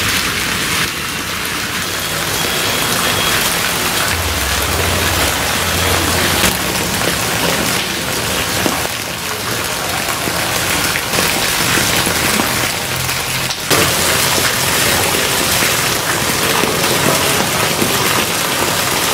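Heavy rain pouring down, a steady, dense hiss of drops splashing onto a wet road and its puddles.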